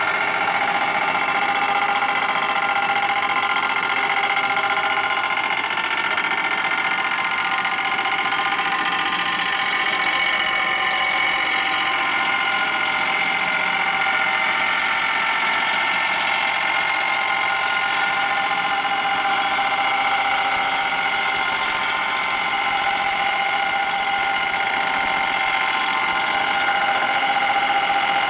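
Machine tool running steadily while taking a light 3-thousandths cut across a chromed part, with a steady whine. It is skimming the face flat so that a gasket will seal.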